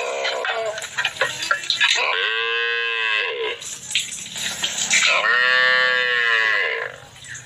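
A young calf mooing twice, each a drawn-out call that rises and then falls in pitch: the first about two seconds in, the second about five seconds in and a little longer.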